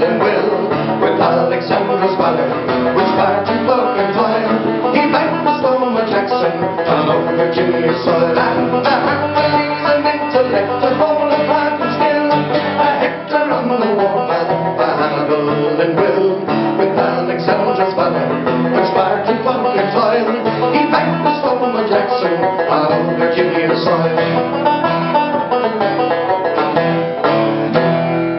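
Acoustic guitar and banjo playing a folk tune together, the banjo picking quick notes over the strummed guitar.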